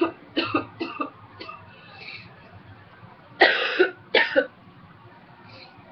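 A woman's dry cough from a cold: a quick run of short coughs in the first two seconds, then two louder, longer coughs about three and a half seconds in, and a faint one near the end.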